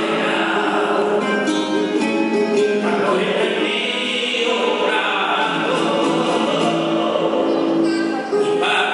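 Flamenco cante: a male singer holding long, wavering sung notes, accompanied by a nylon-string flamenco guitar.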